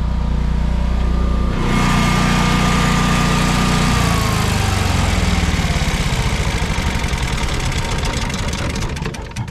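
Generac home standby generator's engine running, growing louder about a second and a half in as its enclosure lid is raised. About four seconds in it is switched off at the control panel and its pitch falls as it winds down, slowing pulse by pulse and coasting to a stop near the end.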